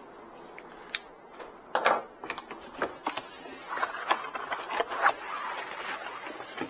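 Packaging being handled during an unboxing: a sharp click about a second in, then irregular knocks and rustling of cardboard and paper as items are taken out of the box.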